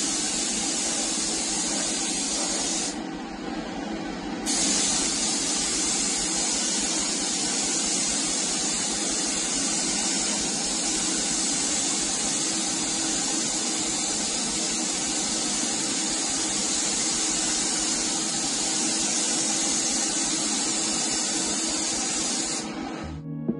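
Gravity-feed air spray gun hissing steadily as it atomises paint. The hiss thins for a moment about three seconds in and cuts off just before the end.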